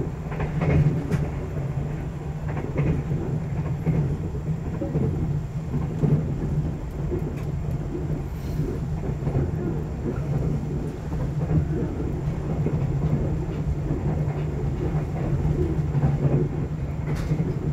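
Steady running noise inside a 24-series sleeper coach at speed: a low rumble of wheels on rail and bogies, with a few sharp clicks from the track near the start and near the end.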